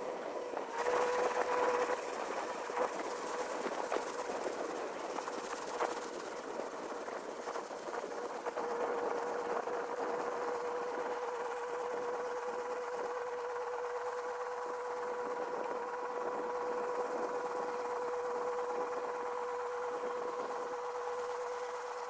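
Tractor running as it rakes hay, a steady whining hum that holds one pitch and settles after about eight seconds.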